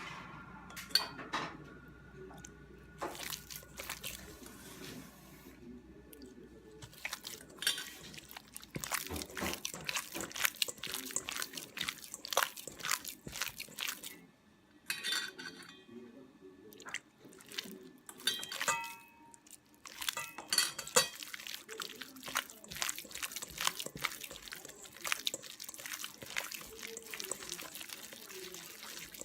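Kitchen preparation sounds: bowls, dishes and utensils knocking and clinking at irregular moments, some clinks ringing briefly, with occasional wet liquid sounds.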